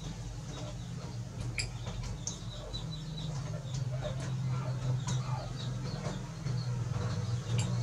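Soft splashing and lapping of water in a plastic tub as a young monkey paddles and drinks, with scattered small clicks and faint high chirps, over a steady low hum that grows somewhat louder about three seconds in.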